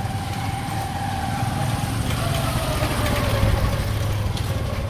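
A motor vehicle's engine running close by, a steady low hum with a whine that drops slightly in pitch about two seconds in, getting a little louder towards the middle.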